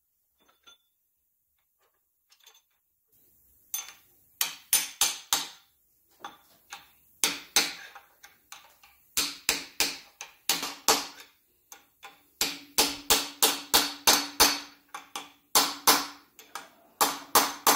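Hammer blows through a driver tube, seating a heated double-roller crankshaft timing gear on a Chevy 305 small-block's crankshaft. The blows start about four seconds in, in quick groups of three to five. The later blows ring with a clear tone, the sound change that shows the gear is on all the way.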